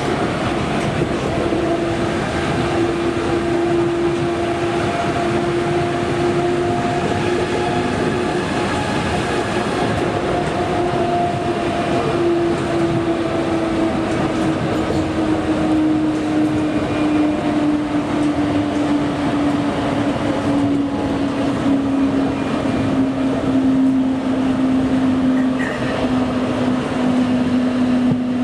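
Osaka Monorail train running, heard from inside the car: a steady rolling rumble with a motor whine that slowly falls in pitch.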